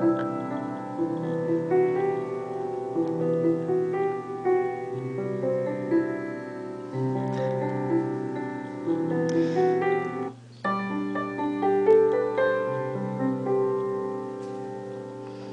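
Piano music played through a homemade single-ended tube amplifier (12AX7 preamp, 6BQ5/EL84 output tube) and a bookshelf speaker, with no deep bass. The music drops out briefly about ten seconds in.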